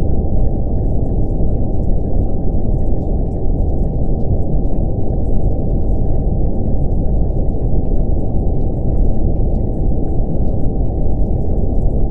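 Steady brown noise with a constant 777 Hz tone held over it.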